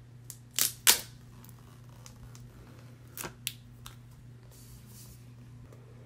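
Plastic shrink-wrap seal being torn off an iPhone 12 box: two sharp crackling rips about a second in. Lighter clicks and crackles follow a few seconds later as the box is handled, and there is a soft knock at the end.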